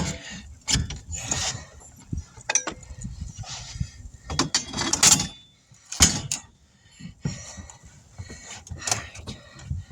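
Hand tire-changing work on a pickup truck tire and rim: irregular metal clanks, knocks and scraping from the tools and the rim.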